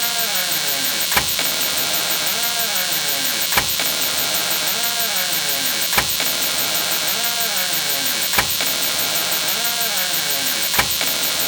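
A door-opening sound effect played over and over, about every two and a half seconds: a sharp latch click, then a creaking hinge that slides up and down in pitch.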